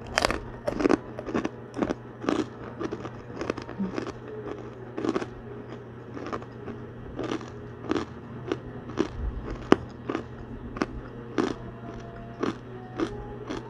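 Crispy pork rind (chicharon) being bitten and chewed: a run of sharp, irregular crunches, about two a second, very crispy.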